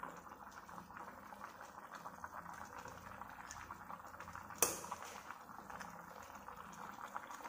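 Braising sauce simmering in a stainless steel pan: a steady fine crackle of small bubbles, with one sharp click about four and a half seconds in.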